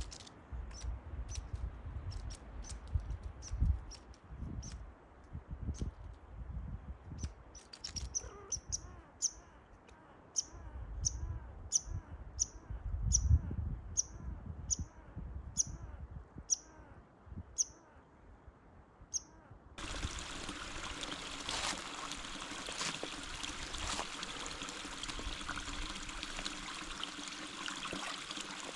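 A bird repeating short high chirps, about fifteen in a row, over light knocks and handling sounds. About twenty seconds in, the sound switches suddenly to steady running water.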